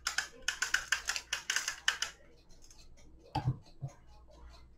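Metal chain of a 1973 German cuckoo clock rattling and clicking as it is threaded back through the movement by hand: a dense run of small clicks for about two seconds, then two dull knocks a little after three seconds in.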